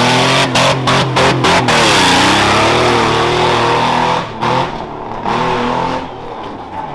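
Rough-truck engine revving hard under full throttle, its pitch dipping and climbing again, cutting in and out several times about a second in, then dropping in level after about four seconds.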